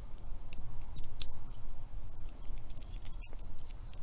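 Small metal lock parts clicking as they are handled while a padlock's cylinder and follower are worked on: a few short, sharp clicks over a low rumble of handling noise.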